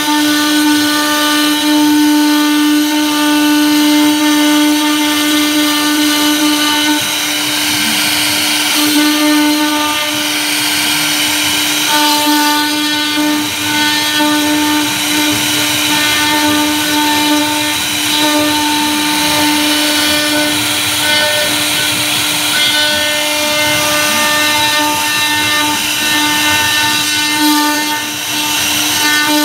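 CNC router spindle running at speed with a steady whine while a V-bit carves grooves into a wood board, with a rasping cutting noise under the tone.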